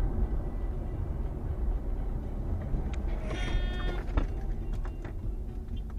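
Steady road and engine rumble inside a car moving at highway speed, recorded by a dashcam. About three seconds in, a brief shrill tone sounds for under a second, followed by a sharp knock and then scattered small clicks.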